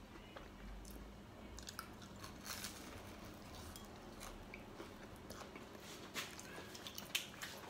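Faint chewing of a mouthful of breaded, deep-fried chicken roll, heard as small irregular clicks.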